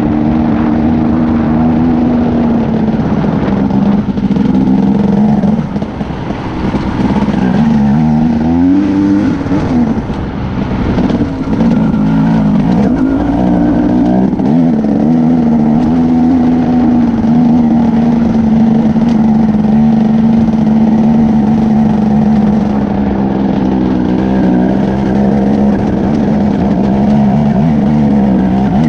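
KTM Freeride 250 dirt bike engine running at a steady, even pitch. The throttle is eased off about six seconds in, and the revs climb and fall back around eight to nine seconds, with another short rise near the middle.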